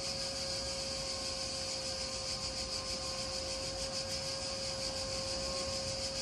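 A motor-driven machine running steadily: an even hiss with a constant hum note that does not change.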